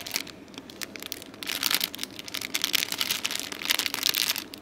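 Clear plastic bag around a bundle of embroidery floss skeins crinkling as it is handled: a rapid run of crackles, sparse at first and busier from about a second and a half in.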